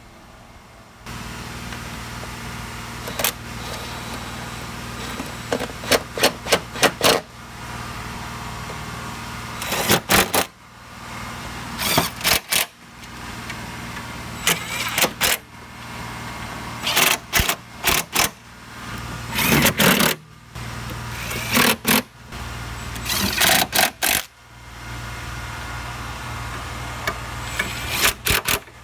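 Electric impact gun running 10 mm bolts in repeated short bursts, each burst a quick rattle of hammering clicks, about ten bursts in all. A steady low hum runs underneath from about a second in.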